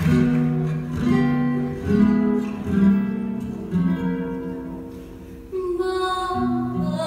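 Recorded music: an acoustic guitar plays a slow introduction, with notes and chords struck about once a second.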